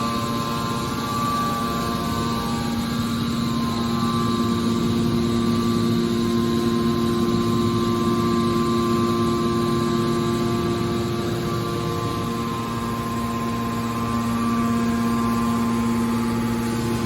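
A metal baler's hydraulic power unit running with a steady machine hum, its pitch shifting slightly a few seconds in and again near the end.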